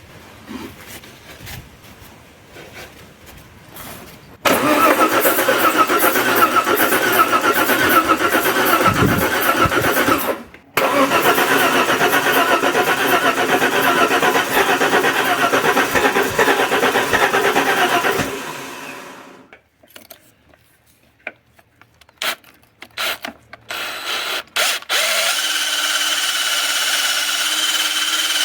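Alfa Romeo 164's 2.0 V6 turbo Busso engine being cranked in two long start attempts, with a short break between them, as it struggles to start. A few clicks follow, then a steady whine starts near the end.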